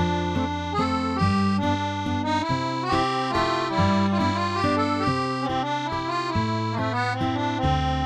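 Background instrumental music: held chords over a bass line that moves every second or so.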